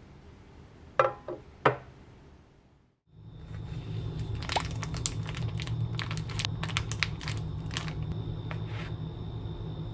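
Two sharp knocks about a second in. Then a plastic sausage packet crinkles and crackles steadily as it is cut open with a knife and the mini sausages are squeezed out, over a steady low hum.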